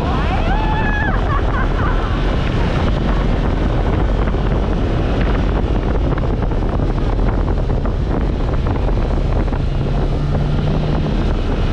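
Off-road vehicle engine running steadily under way over sand, with wind buffeting the microphone. A brief voice is heard in the first couple of seconds.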